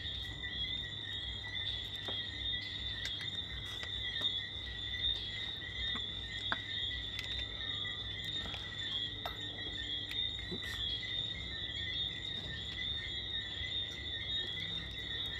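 Steady, high-pitched chorus of crickets calling at night, with a few faint clicks and taps of a serving spoon against a plate.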